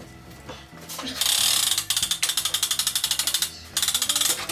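Hand-cranked winch on a steam-bending jig ratcheting as its crank is turned: a fast, even run of pawl clicks starting about a second in, with a brief pause near the end.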